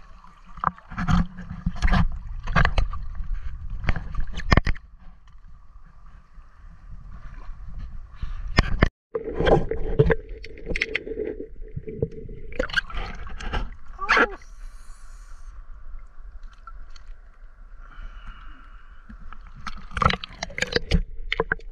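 River water splashing and sloshing around a camera held at the surface and dipped under, with scattered knocks and muffled underwater rumbling.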